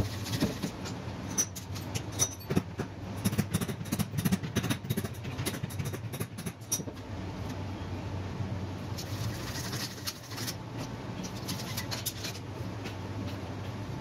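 Rubber tyre being levered and worked onto a scooter's hub-motor wheel rim: a quick run of clicks and knocks from the tool against the rim in the first half, then lighter handling noises, over a steady low hum.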